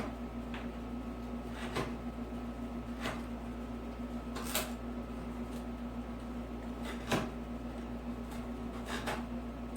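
Scattered short clicks and scrapes from a utility knife scoring wooden door shims and the shims being snapped off, about eight sharp sounds spread out over a steady low hum.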